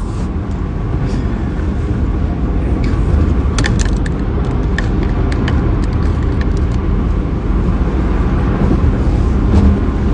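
Steady low rumble of car road and engine noise heard inside the cabin while driving, with a few short sharp clicks about three to five seconds in.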